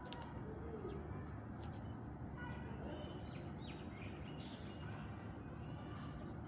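Birds chirping, with a few short high calls from about two and a half to four seconds in, over a steady low hum. A couple of sharp clicks come right at the start.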